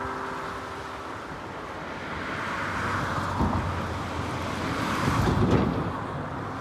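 Strong gusty wind blowing over the microphone, with a steady rushing noise and two heavier low buffets, about three and a half and five and a half seconds in.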